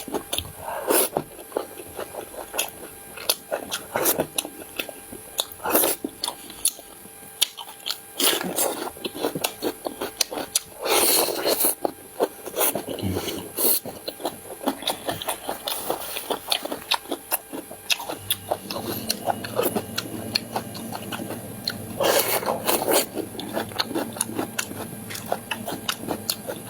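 A person eating close to the microphone: chewing and biting, with many short clicks and a few louder bursts.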